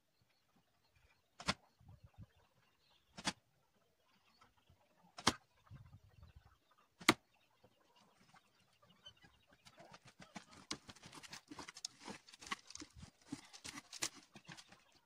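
Arrows from a recurve bow striking a cardboard box target, four sharp thuds about two seconds apart. From about ten seconds in, a busy run of crunching and clicking as the archer reaches the target and pulls the arrows out.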